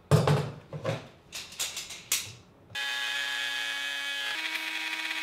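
Knocks and clatter of tools being handled on a wooden workbench. Then, just under three seconds in, a DeWalt router fitted with a straight pattern bit runs with a steady high whine, and its pitch steps up a second and a half later as it works the edge of a hardwood board.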